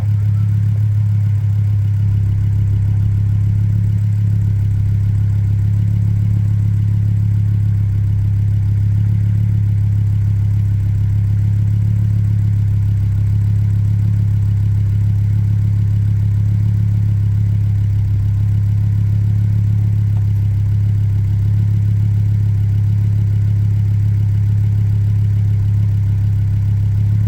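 Ford ST engine idling steadily with a freshly rebuilt cylinder head, a constant low hum with no change in speed.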